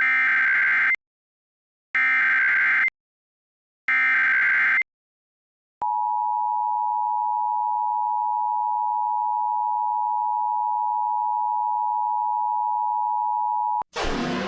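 Emergency Alert System SAME header: three one-second bursts of warbling data tones announcing a Child Abduction Emergency (Amber Alert), then the two-tone attention signal held steady for about eight seconds. A different sound with falling tones cuts in at the very end.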